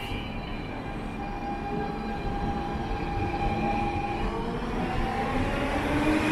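DSB S-tog suburban electric train pulling into the platform, a whine of several held tones over a rumble of wheels that grows steadily louder as the train nears.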